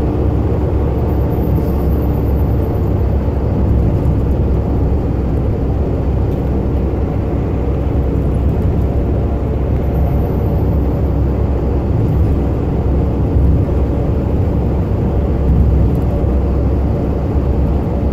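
Heavy truck cruising at highway speed, heard inside the cab: a steady, loud low engine drone mixed with road noise.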